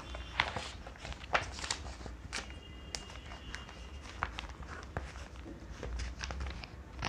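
Pencils scratching on drawing paper and loose paper sheets rustling, heard as scattered short scratches and light taps over a faint low room hum.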